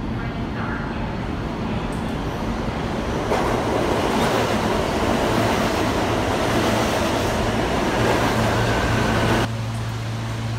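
New York City subway train pulling into the station: a rushing rumble of wheels on rails that grows louder about three seconds in, with a faint high whine near the end. It cuts off suddenly about nine and a half seconds in, leaving a steady low hum.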